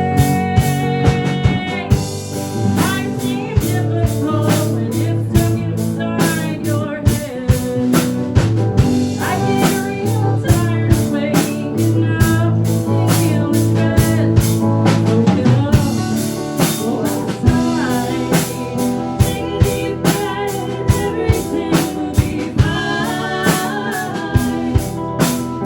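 A live rock band playing, with electric guitar lines over a drum kit keeping a steady beat.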